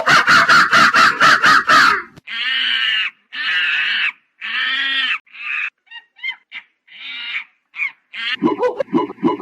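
Monkey calls: about two seconds of harsh, rapid chattering at roughly seven pulses a second, then three longer drawn-out cries and a string of short squeaks, with fast chattering starting again near the end.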